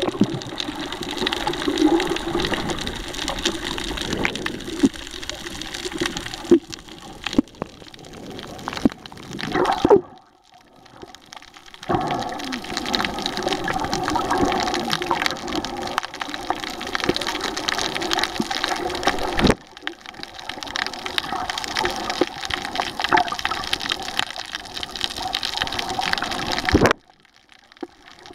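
Water rushing and sloshing around a camera held underwater while snorkeling, with scattered sharp knocks. The noise drops away twice, about ten seconds in and near the end.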